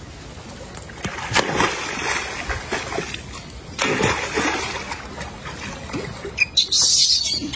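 Monkeys splashing and swimming in shallow water, a few separate bursts of splashing, the loudest near the end.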